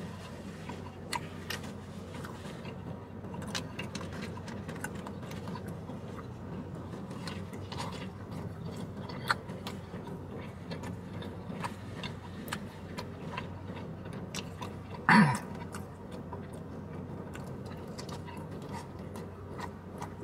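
Close-up chewing and biting of a burrito, with wet mouth clicks and smacks and the crinkle of its paper wrapper coming at irregular moments. A steady low hum lies under it, and about fifteen seconds in comes a short, loud vocal 'mm'-like sound from the eater.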